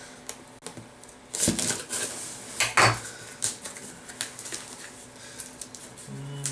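Irregular clicks, knocks and rustling of a shipping package being worked open with a pocket knife and fingers, the sharpest knock about three seconds in. A short low hummed note from a voice comes near the end.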